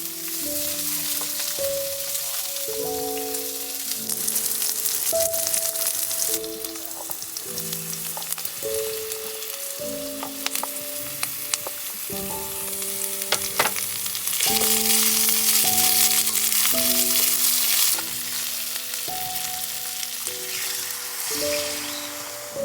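Food sizzling and crackling in a hot pan, over background music with a simple melody of held notes.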